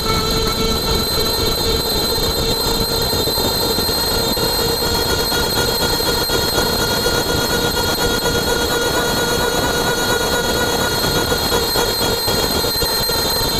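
Front axle of a 1989 Toyota pickup driven in four-wheel drive, heard close up at the right front wheel: a steady whine at an even pitch over loud road and wind rush.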